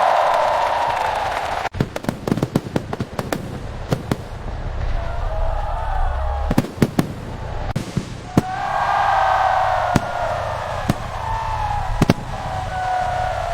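Aerial fireworks bursting: a fast, irregular run of sharp bangs and pops over a steady low rumble, beginning a couple of seconds in.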